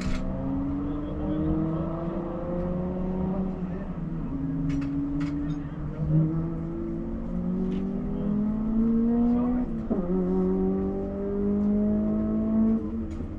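A car engine accelerating hard through the gears. Its pitch climbs steadily, then drops sharply at each upshift, several times over.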